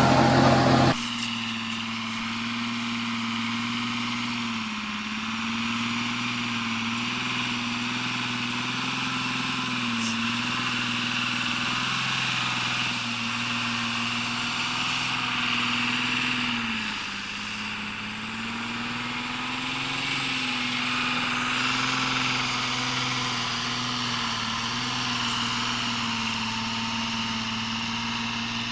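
A heavy vehicle's engine running steadily, its pitch dipping briefly several times as the revs drop and recover, most deeply about two-thirds of the way through. It starts abruptly about a second in.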